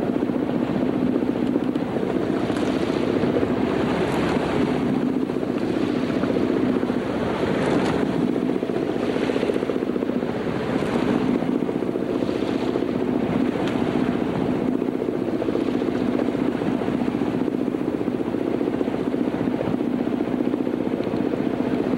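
Wake waves from a passing motorboat splashing against a sailboat's hull, a swash about every second and a half that dies out after about fourteen seconds, over a steady low drone.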